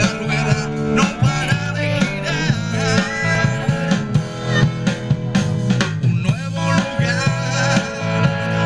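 An original song with plucked guitar and other instruments playing, with a steady beat.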